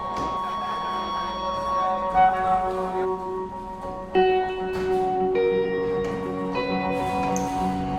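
Instrumental background music: slow held notes that change every second or two, with a few sharper struck notes.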